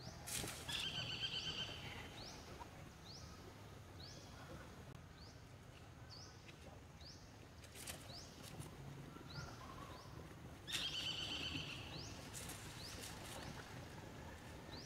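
Baby macaque screaming in two high-pitched, wavering bouts, one near the start and one about eleven seconds in, each lasting a second or two. A short rising chirp repeats steadily in the background throughout.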